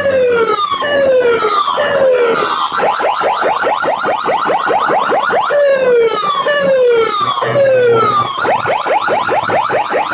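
Electronic siren effects played very loud through a DJ sound-box speaker rig. Fast rising sweeps repeat about five times a second, and over them a falling whoop sounds three or four times in a row, twice.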